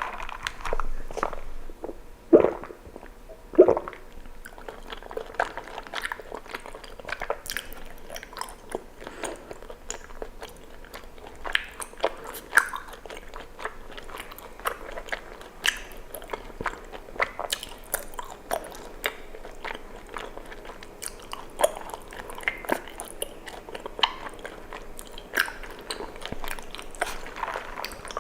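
Close-miked chewing of tapioca pearls from bubble tea: a steady run of wet, sticky mouth clicks and smacks, with two louder mouth sounds at about two and three and a half seconds in.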